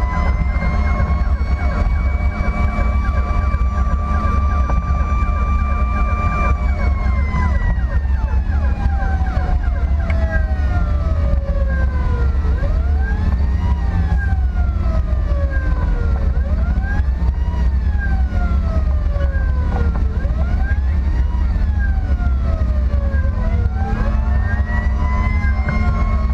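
Emergency vehicle siren wailing over a steady low drone of engine and road noise, heard from inside a moving vehicle. The tone is held high for several seconds, slides slowly down, then rises and falls about every three and a half seconds, and near the end rises and holds high again.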